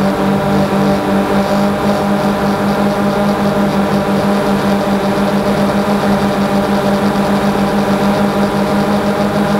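DJI Phantom 2 quadcopter's electric motors and propellers humming steadily in flight, picked up close by the action camera mounted on the drone.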